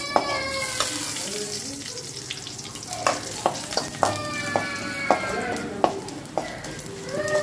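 A tempering of mustard seeds, sliced onion, dried red chillies and curry leaves sizzling and crackling in hot oil in a metal kadai. A metal spoon stirs and scrapes through it, clicking repeatedly against the pan.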